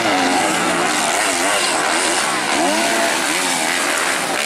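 Several 250cc motocross bikes racing on a dirt track, their engines revving up and down in quick rises and falls of pitch as the riders work the throttle.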